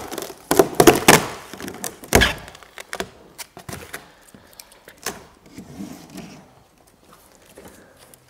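Large cardboard shipping carton being cut open with a box cutter and handled: a busy run of sharp knocks and scrapes in the first couple of seconds, then sparser, quieter clicks.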